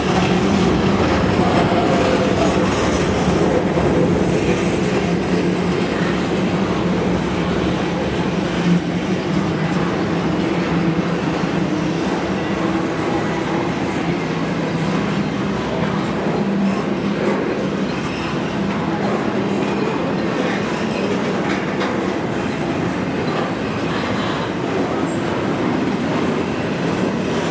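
Double-stack container cars of a freight train rolling past close by: a steady rumble of steel wheels on the rails.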